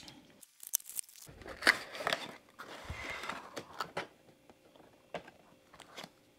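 Hands handling a cardboard toy box and the plastic-wrapped paper inserts inside it: scattered soft clicks and scrapes, with a stretch of plastic crinkling around the middle.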